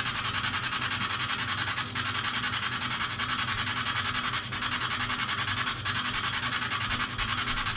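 Spirit box (radio-sweep ghost box) scanning: a steady hiss of radio static chopped into rapid, even pulses, several a second.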